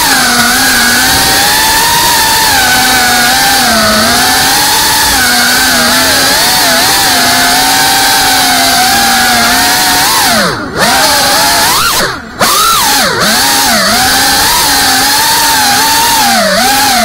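FPV quadcopter's brushless motors and propellers whining, the pitch wavering up and down with the throttle. Twice, about two-thirds of the way through, the throttle is chopped: the whine briefly drops away and swoops back up.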